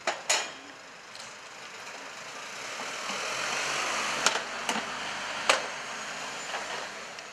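A Mercedes ambulance van drives slowly past close by. Its engine and tyre noise swells as it nears and stays up while it passes. A few sharp clicks come through, two right at the start and three more a little after the halfway point.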